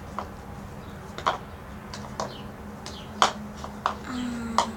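Homemade slime being kneaded and stretched by hand, giving sharp, irregular clicks and pops about once a second. A short low hum comes near the end.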